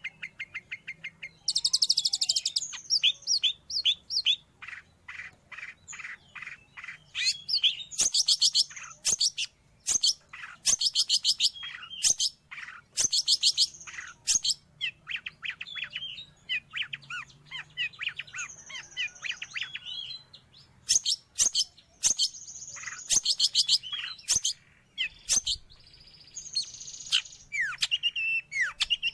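Long-tailed shrike (cendet) singing: quick, varied phrases of sharp high chirps and rapid rattling trills, broken by short pauses.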